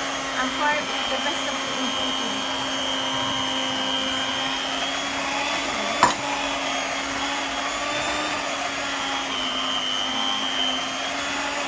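Electric hand mixer running steadily, its beaters churning thick batter and walnuts in a plastic bowl. A single sharp knock comes about six seconds in.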